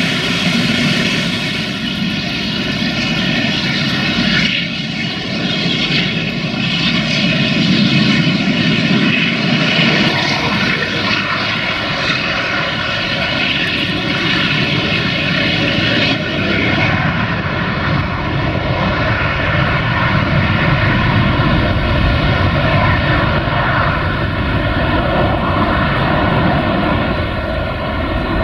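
Airbus A380's four Rolls-Royce Trent 900 turbofans running steadily as the airliner taxis and lines up for takeoff: a loud, even rush with a hum of several steady tones. The highest hiss fades after about 17 seconds.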